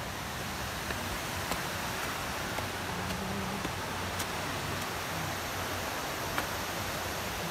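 Steady rustling noise of a hiker walking along a leafy forest trail with a phone in hand, with a few faint taps of footsteps.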